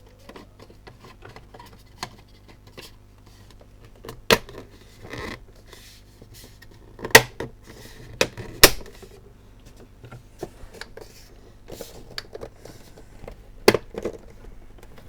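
Plastic parts of a Lavazza capsule coffee machine being handled and fitted back together: scattered sharp clicks and knocks, the loudest about seven and nine seconds in.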